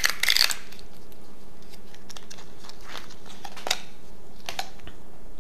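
Small plastic and paper packaging being unwrapped by hand: a brief burst of crinkling right at the start, then a few short clicks and rustles as a charging cable is pulled free, over a steady low background hum.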